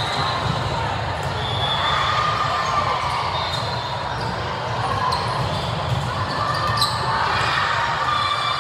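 Busy indoor volleyball-gym din: volleyballs being struck and bouncing on the court, with a steady background of voices in a large, echoing hall.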